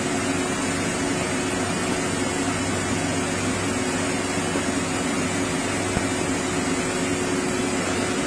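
A multi-spindle CNC router running steadily: an even mechanical hum with one constant tone, no cutting bursts or changes.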